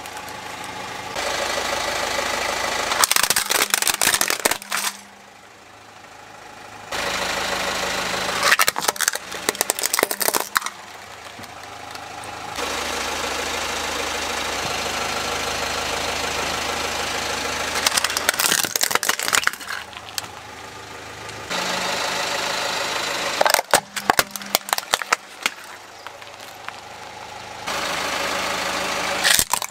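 A car engine running slowly, broken by several spells of sharp cracking and snapping as the car's tyre rolls over and crushes small plastic toy cars, one after another.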